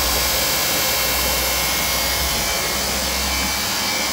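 Hop Sport HS1402 treadmill running steadily, its drive motor and belt giving a constant whirring noise with a low hum. It is working normally with its repaired control board.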